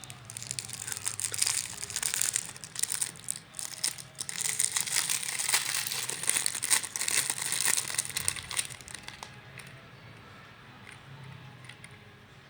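Crinkling and rustling of plastic packaging being handled and opened, dying down after about nine seconds.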